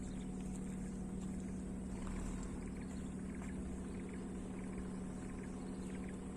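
An engine running steadily, a low even drone, with a few faint light clicks over it.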